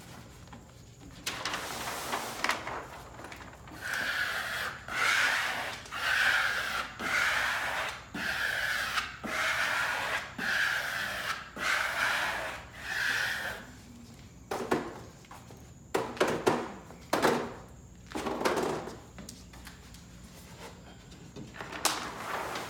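Vinyl wallpaper being smoothed onto the wall in about ten rubbing strokes, roughly one a second, followed by a few short clicks and knocks.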